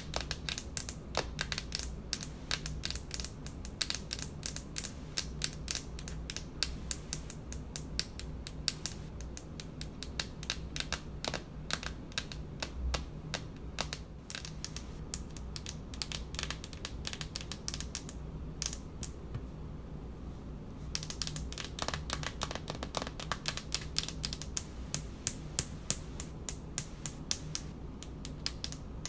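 Long fingernails tapping quickly on a countertop: a fast, uneven run of light clicks that thins out briefly about two-thirds of the way through, over a low steady hum.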